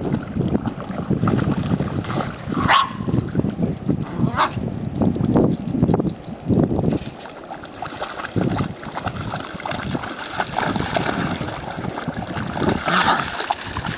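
Dogs playing in shallow sea water, with a few short, sharp barks and yips and water splashing around their legs. A low rumble of wind on the microphone runs through the first half.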